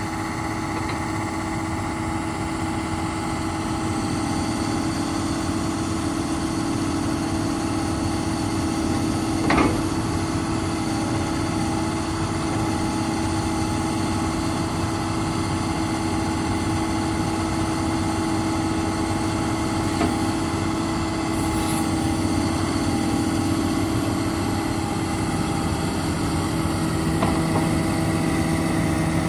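The six-cylinder turbo diesel of a Komatsu PC400LC-7 tracked excavator running steadily, with a single short knock about ten seconds in.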